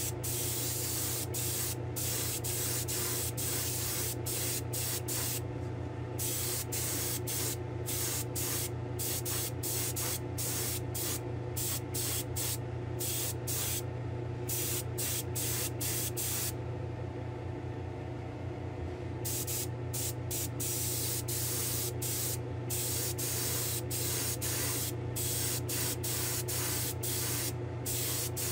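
Gravity-feed airbrush spraying coats of candy paint in many short hissing bursts, one every second or so, with a couple of pauses of a second or two. A steady hum runs underneath.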